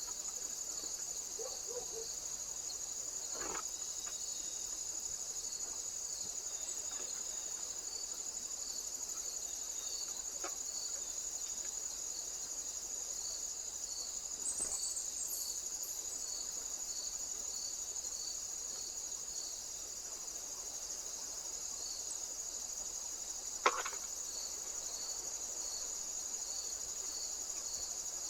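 Insects trilling in a steady chorus: a continuous high-pitched trill, with a softer chirp repeating just over once a second beneath it. A single sharp click sounds about 24 seconds in.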